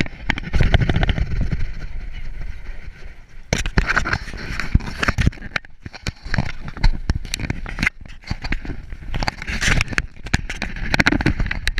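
Handling noise on a GoPro strapped to a poodle's back: rubbing and scraping against the mount and fur, with many irregular sharp knocks as the dog moves and is handled.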